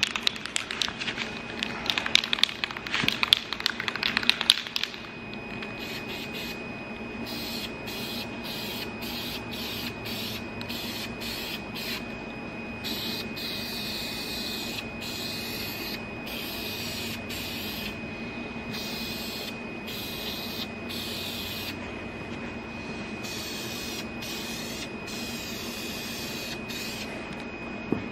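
An aerosol spray-paint can is shaken, its mixing ball rattling rapidly for about five seconds. It is then sprayed in a long series of hissing bursts with short pauses between them.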